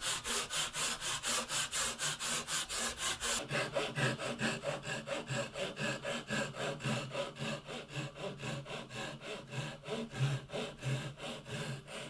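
Hand saw cutting through a wooden board, in steady back-and-forth strokes about three a second. About three seconds in, the strokes become quicker and denser as a second cut on a flat guide begins.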